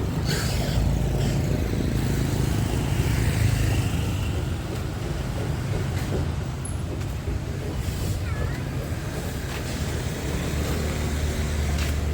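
City street traffic: a steady low rumble of passing vehicle engines.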